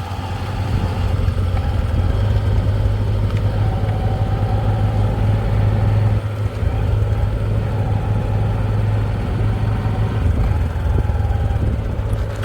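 Heavy diesel engine running steadily with a deep, even hum, dipping briefly about six seconds in.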